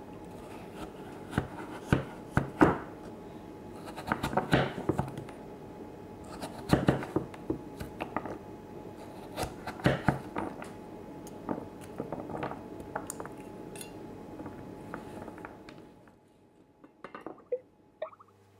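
Knife and pieces of butternut squash knocking and scraping on a wooden chopping board, in irregular clusters of sharp knocks that stop near the end.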